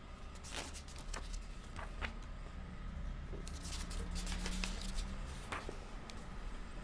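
Paper pages of a thick book being turned by hand: several short, sharp rustles and swishes over a low steady hum.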